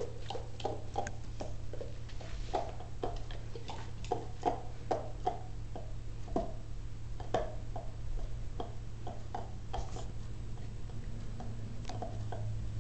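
A dog gnawing a golf ball: its teeth click and scrape on the hard ball in irregular short clicks, sometimes several a second. A steady low hum runs underneath.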